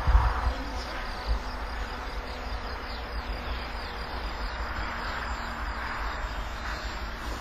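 Radio-controlled model aircraft droning steadily in the distance, a thin buzzing whine that drifts in pitch. A low, uneven rumble sits underneath, loudest just after the start.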